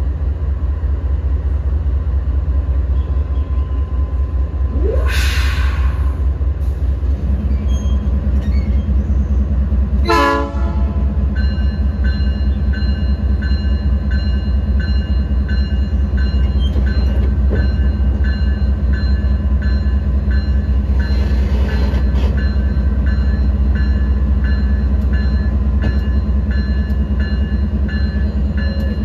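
Estrada de Ferro Vitória a Minas passenger train backing slowly along a platform, its cars rolling past with a steady low rumble. There is a short hiss about five seconds in and a brief horn blast about ten seconds in. A faint high beeping repeats through the second half.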